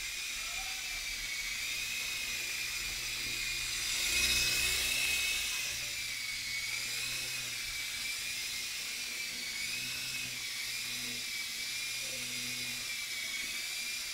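Blade MCX micro coaxial electric RC helicopter hovering: the high-pitched whine of its small motors and rotors, the pitch wavering slowly up and down as the rotor speed changes. It gets louder about four seconds in.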